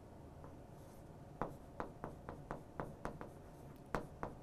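Chalk writing on a chalkboard: short, sharp taps and strokes, about three a second, starting about a second and a half in after a quiet stretch.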